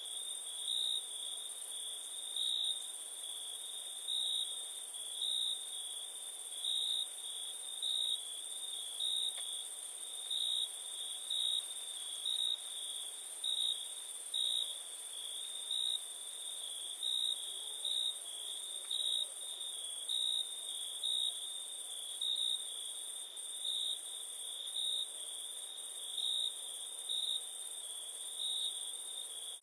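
Crickets chirping in a steady night chorus: one high trill that swells in regular pulses about once a second, over a constant higher-pitched insect hum.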